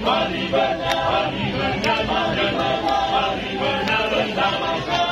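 Male choir singing a cappella in several parts, a Masamper song of the Sangihe people, with a sharp tap about once a second keeping time.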